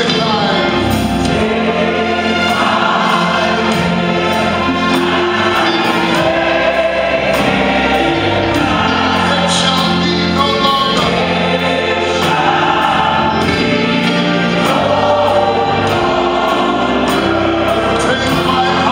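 A church choir singing a gospel hymn with instrumental accompaniment and a steady beat.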